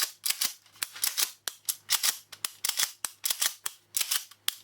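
Remington 870 pump-action shotgun being racked over and over, its slide and action clacking back and forth in a quick run of sharp metallic clacks, several a second.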